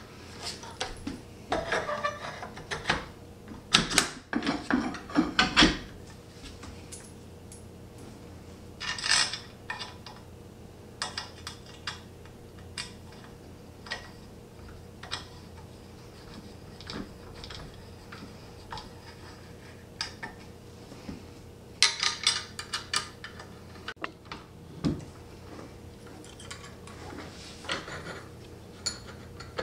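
Small metal Allen keys and bolts clinking and clattering against the bench frame as they are picked up and turned in the bolt heads. The sound comes in bursts of rapid clicks, with scattered single clicks between.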